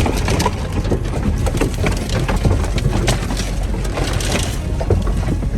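A 1987 Toyota pickup driving slowly over a rough, snowy track: a steady low engine drone under frequent crunches, cracks and clicks from the tyres and the truck's body working over the uneven ground.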